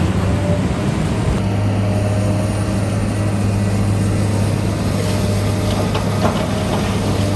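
Heavy construction machine's diesel engine running with a steady low drone that settles in about a second and a half in, with a few light clicks near the end.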